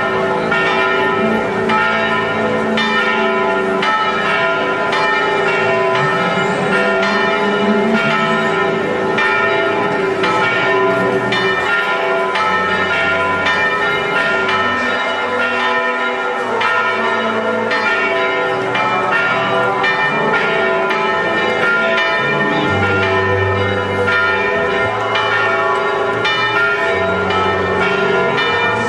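Church bells pealing from the bell towers, several bells struck in quick succession so their ringing overlaps into a continuous loud peal.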